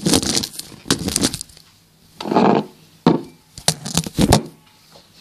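Handling noise from a handheld phone camera: a string of sharp knocks and rubbing as fingers and a cotton T-shirt brush against it, densest between about three and four and a half seconds.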